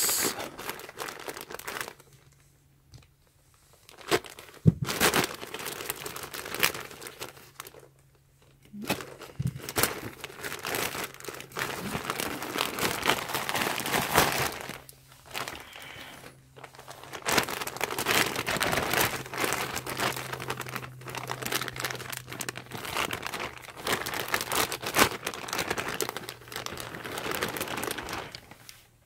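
Plastic poly mailer bag being torn open and crinkled by hand, then the clear plastic bag inside rustling as the contents are handled. The rustling comes in long spells with a few short pauses and a sharp snap about five seconds in.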